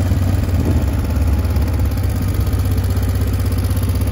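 Motorcycle engine running at low, steady revs, a constant low hum.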